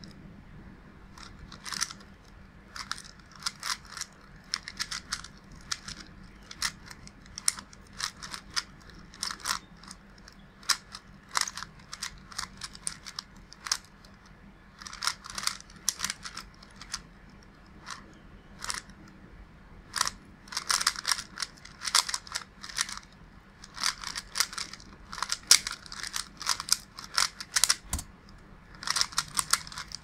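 Plastic clicking and clacking of a 30th Anniversary Rubik's Cube turned fast in a speedsolve, in quick flurries of turns broken by short pauses. The cube is lubricated with a few drops of Silk but still turns stiffly, like an unlubed budget cube.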